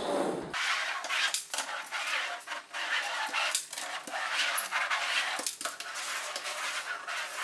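Outside corner roller on an extendable pole being rolled up and down drywall corners, pressing PVC corner bead into wet joint compound: a busy run of clicks and rattles over a scraping hiss.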